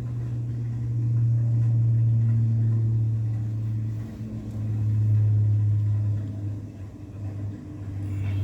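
A sleeping woman snoring loudly with a low, rumbling snore. There are two long snores of about three seconds each, and a third begins near the end.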